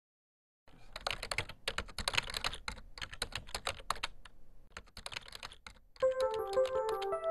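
Keyboard typing: rapid clicking in bursts with short pauses, starting just under a second in. About six seconds in, a tune of single notes begins, with the typing carrying on beneath it.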